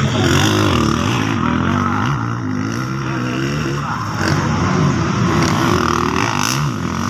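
Motocross bike engines racing: several off-road motorcycle engines revving up and falling back over and over as the riders work the throttle through the course.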